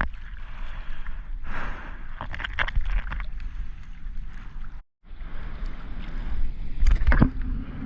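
Water sloshing and splashing close to the camera, with scattered sharp splashes over a steady wind rumble on the microphone. The sound cuts out completely for an instant about five seconds in.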